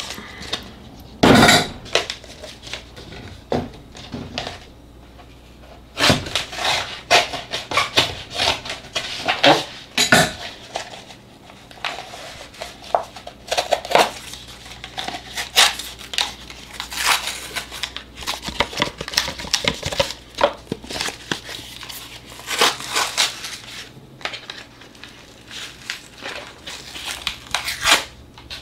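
Irregular clicks, knocks and clatter of a plastic tub, its lid and a bag being handled over a stainless-steel counter while prunes are shaken and picked out into a crock pot. The loudest knock comes about a second in.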